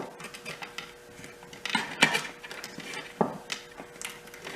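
Small hard clicks and knocks of metal and plastic parts being worked loose and handled by hand, several sharp ones about two and three seconds in, over a faint steady hum.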